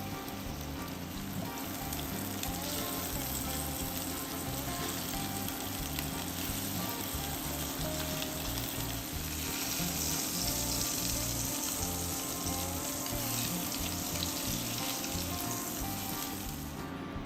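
Food frying in a pan with a steady sizzle, over background music.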